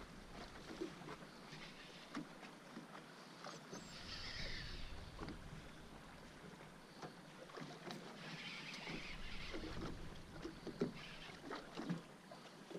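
Faint water lapping around a small boat, with a couple of brief splashy hisses and scattered light knocks.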